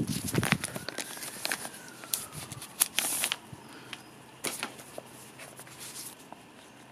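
Thin plastic wrapping crinkling and tearing as it is peeled off paper booklets, with paper rustling; the crackling is densest in the first three and a half seconds, then thins to occasional rustles.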